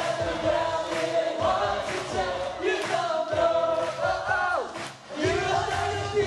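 Male vocals sung into microphones over a loud backing track, amplified through a PA. A held vocal note slides down in pitch and breaks off about five seconds in.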